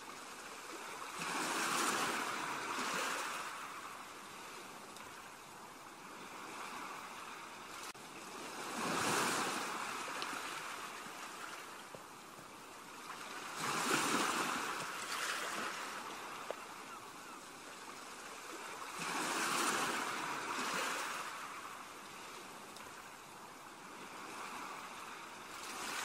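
Sea waves washing against a rocky shore, a rushing hiss that swells and ebbs in four surges several seconds apart.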